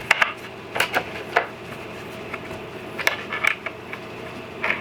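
Small metal hardware (T-nuts, washers, nuts and bolts) clinking and tapping as it is handled and fitted into a wooden jig: a series of irregular light clicks.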